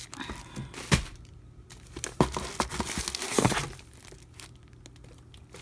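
Plastic-wrapped plaster packets crinkling and rustling as they are handled in a cardboard box. There are sharp crackles about a second in, then a dense run of crinkling from about two to three and a half seconds, settling to faint rustles near the end.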